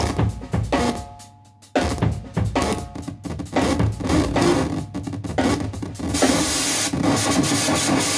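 Live noise-music improvisation: a drum kit played in dense, rapid hits with cymbals, over harsh amplified electric-guitar noise and a few held drone tones. It drops back briefly about a second and a half in, then comes back loud.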